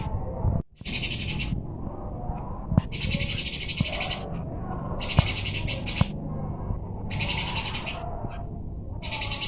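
Songbird giving sparrow-style fighting chirps: bursts of rapid, high chirping, each half a second to a second long, repeated about every two seconds, over a steady low background hum with a few sharp clicks.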